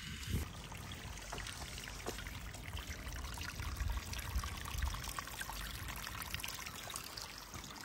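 Spring water trickling and pouring steadily out of the ground.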